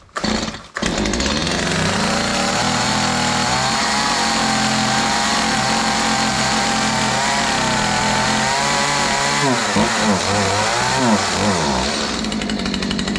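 Stihl MS181 two-stroke chainsaw running at high revs, coming in loud about a second in after a brief break. Its pitch holds fairly steady, then rises and dips repeatedly near the end as the saw works through firewood logs.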